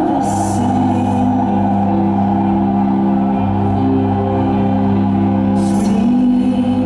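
Live band music: sustained droning electric guitar chords over a steady low note, with a slow sliding pitch rise about six seconds in and brief hissy swells up high.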